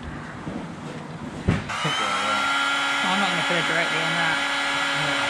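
Electric heat gun switched on with a click about a second and a half in, then running steadily with a fan whine and rush of air as it shrinks heat-shrink tubing over a crimped wire terminal.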